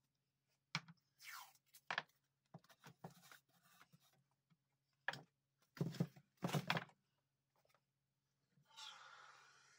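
Faint clicks and knocks of a can of expanding foam and PVC pipe being handled, the loudest cluster about two-thirds of the way through, then about a second of hissing near the end as the foam gun dispenses foam.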